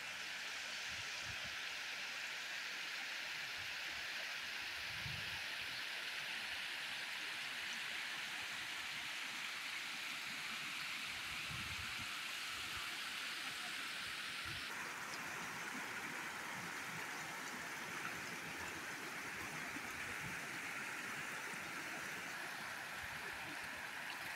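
Floodwater from heavy rain pouring over a masonry weir on a swollen stream and churning below it: a steady rush of falling water whose tone shifts abruptly about fifteen seconds in.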